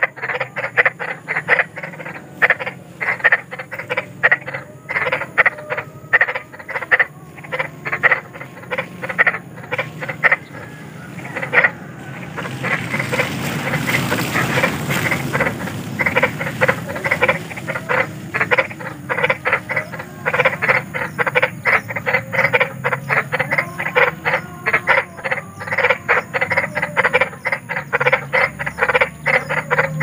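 A frog chorus: many frogs croaking in fast, overlapping rattling pulses. Around twelve seconds in a hissing rush of noise swells for a few seconds, then the croaking carries on.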